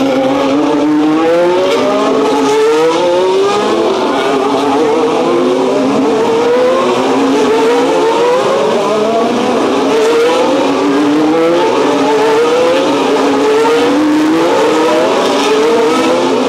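Formula 1 cars' turbocharged V6 engines accelerating hard, pitch climbing and dropping back again and again as they shift up through the gears.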